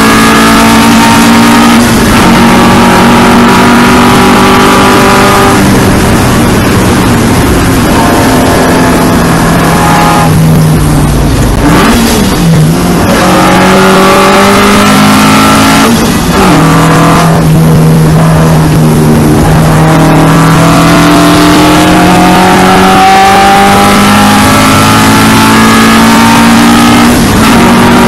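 Classic racing saloon's 2-litre four-cylinder engine under hard acceleration, heard from inside the car. The revs drop off at gear changes, with a brief lift and a quick blip about twelve seconds in. After that the engine climbs steadily in pitch before changing gear near the end.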